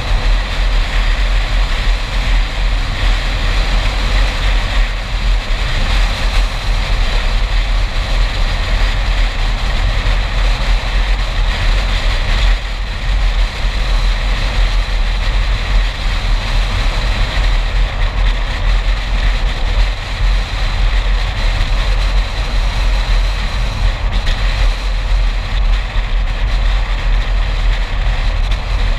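A car driving at road speed: steady tyre and wind noise with a deep rumble, picked up by a camera mounted outside on the hood.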